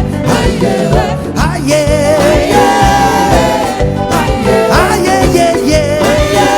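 Live band playing upbeat African gospel praise music with a steady dance beat and a wavering melodic lead line over it.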